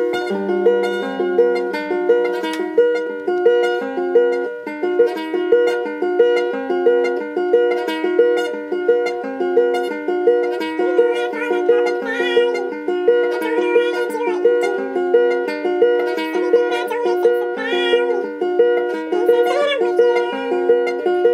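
Acoustic guitar with a capo, fingerpicked in a steady repeating arpeggio pattern. About halfway through, a voice joins in, singing along.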